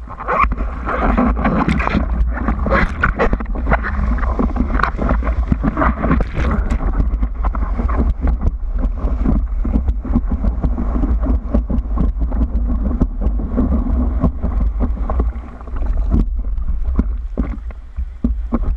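Water rushing and splashing around the nose of a foam surfboard as it is paddled and ridden through a breaking wave, with many small splashes and a steady low rumble underneath. The splashing is busiest in the first several seconds and eases off near the end.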